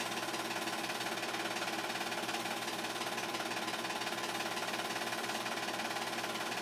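8mm film projector running: a steady, even mechanical clatter from its film-advance mechanism and motor.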